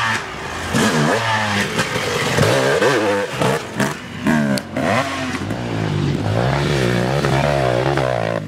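Dirt bike engines revving up and down over and over as the bikes ride along a dirt trail, with one passing close near the end.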